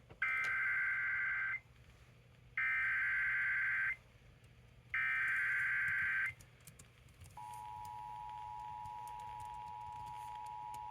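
Emergency Alert System SAME header: three identical digital data bursts of about a second and a half each, about a second apart, encoding a flash flood warning. About seven seconds in, the steady two-tone EAS attention signal starts and holds.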